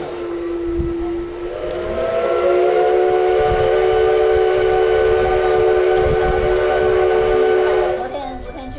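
Steam whistle of the C56 160 steam locomotive blown in one long blast with a hiss of steam. It sounds a single tone for about a second, then opens into a fuller chord held steady, and cuts off about eight seconds in.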